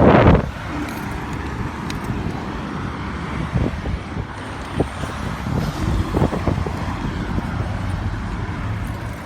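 City street traffic: cars running past in a steady rumble, with a few small knocks. A brief loud rush of noise comes right at the start.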